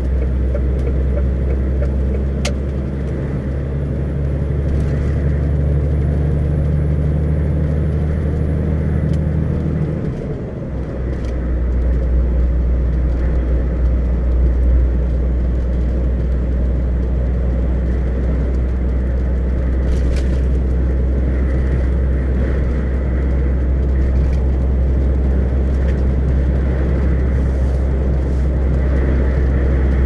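Vehicle interior noise while driving on a highway: a steady low engine drone with tyre and road noise. About ten seconds in the engine note drops away briefly and comes back at a different pitch.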